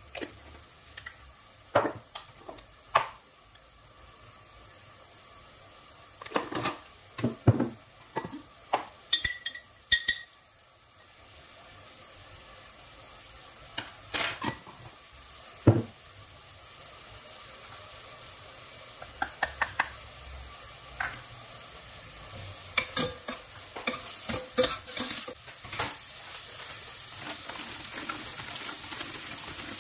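A metal spoon stirring and knocking against a stainless steel pot in irregular clusters of clinks, while vegetables fry in oil with a steady sizzle that grows louder over the second half.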